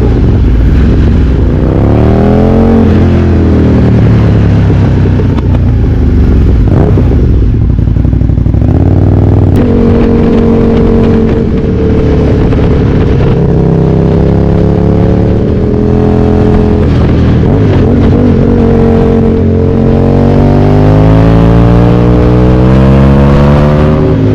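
Aprilia Tuono 1000R's V-twin engine under way, loud throughout. Its pitch climbs hard in the first few seconds and falls away, holds fairly steady through the middle, then climbs again near the end as the bike accelerates.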